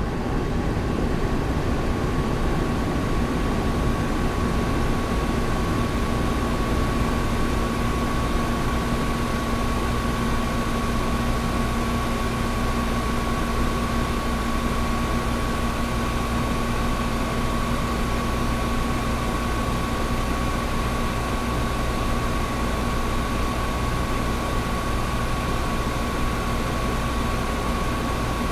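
Old window air conditioner running steadily: an even rush of fan air with a constant low hum and a thin, higher steady tone over it.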